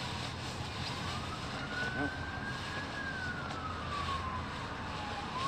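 Emergency vehicle siren in a slow wail, one tone rising and falling with each sweep lasting about two seconds, over a steady low rumble.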